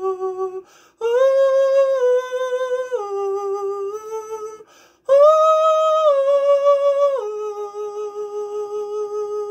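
A man sings long, wordless held notes a cappella, with vibrato, stepping down in pitch within each phrase. The phrases are broken by two short breaths, and the loudest one starts about five seconds in.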